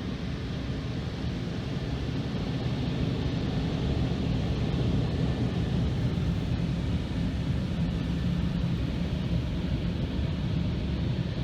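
Automatic car wash heard from inside the car's cabin: a steady rumble and spray of water and machinery on the car, growing a little louder a few seconds in.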